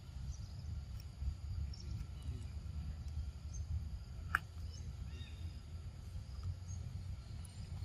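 Outdoor forest ambience: a steady low rumble with faint, scattered bird and insect calls high above it. About four seconds in there is one brief, sharp chirp.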